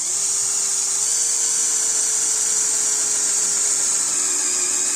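Small electric drill running at a steady high speed: a loud high-pitched whine over a motor hum, its pitch stepping up slightly about a second in.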